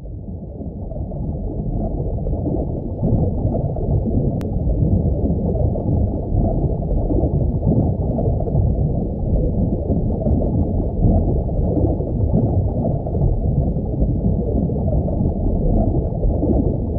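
Underwater ambience sound effect: a steady, muffled low rumble of water that grows louder over the first couple of seconds.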